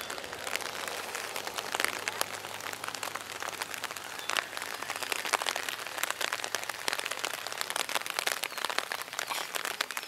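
Rain pattering on an umbrella close to the microphone: a steady hiss dotted with many irregular sharp drop ticks.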